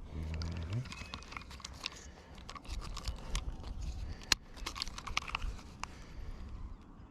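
Close handling noises: a run of clicks, rattles and knocks, with one sharp click about four seconds in, as a freshly caught bass is handled and weighed in the boat.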